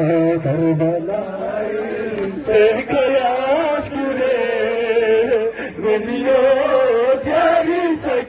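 Men's voices chanting a noha, a Shia mourning lament, in a steady rising-and-falling melody, with a few sharp slaps of hands striking bare chests.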